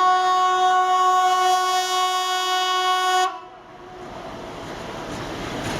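A vehicle horn sounds one long, steady note for about three seconds and then stops. A rushing noise follows and grows steadily louder, like a vehicle coming closer.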